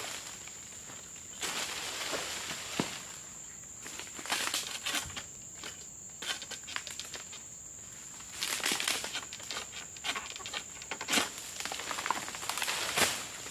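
Pole sickle (egrek) pruning oil palm fronds: irregular rustling and crunching of the fronds, broken by several sharp snaps, the loudest near the end.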